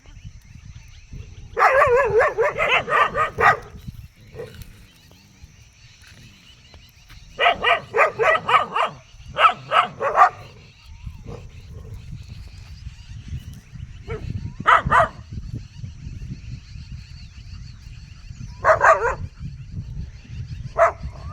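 A dog barking in fast volleys of several barks a second, in repeated bursts with pauses between, as it confronts a snake.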